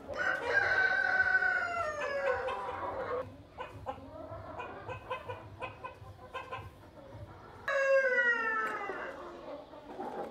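Domestic rooster crowing twice: a long crow at the start and a shorter one near the end, each falling in pitch as it ends. Between the two crows, quieter short clucking from hens.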